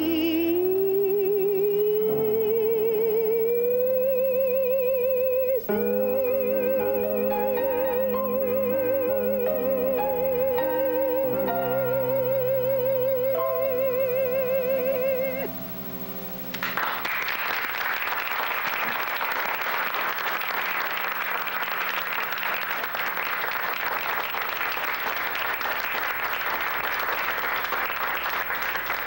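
A woman's soprano voice holding the final note of a song with a wide vibrato, climbing in pitch over the first few seconds and then held for about fifteen seconds over sustained piano chords. The music stops about halfway through, and steady applause follows for the rest.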